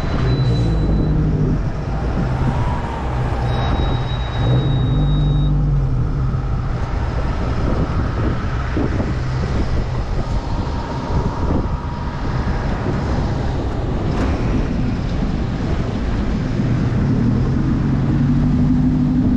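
A boat's engine running under way, its note shifting now and then, with a steady rush of wind and water against the hull.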